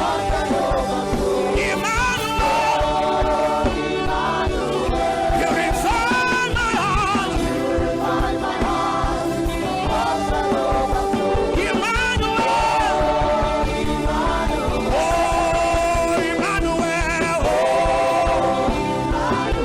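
Gospel worship music: a voice singing long, sliding phrases over sustained chords and a steady beat.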